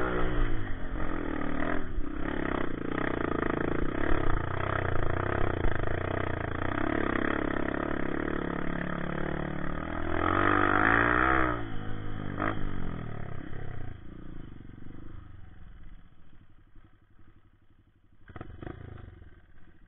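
Honda CRF150 dirt bike's four-stroke single-cylinder engine running under load on a dirt trail, its pitch rising and falling with the throttle. Near the end it drops away to a quiet low running as the bike slows to a stop, with a single knock.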